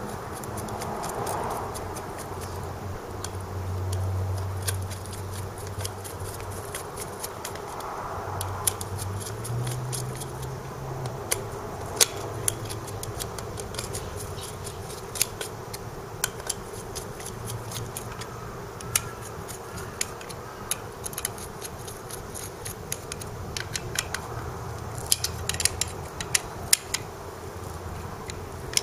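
Short, sharp metallic clicks and ticks of a screwdriver turning the small screws on a brush cutter's muffler cover, coming irregularly and most thickly near the end, over a steady low hum.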